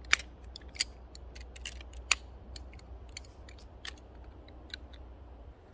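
Poles of a folding camp chair frame clicking and snapping into place as the chair is put together: a quick series of sharp clicks, the loudest near the start and about two seconds in.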